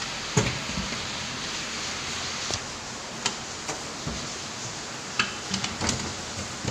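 Steady rain hiss, with irregular sharp ticks every second or so.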